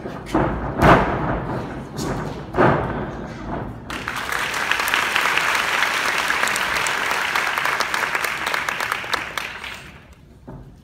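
A couple of loud thuds, then an audience suddenly breaks into applause about four seconds in, holding steady before dying away near the end.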